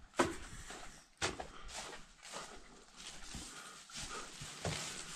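Rustling and shuffling in barn straw, with a few sharp knocks: one just after the start, one about a second in and a smaller one near the end.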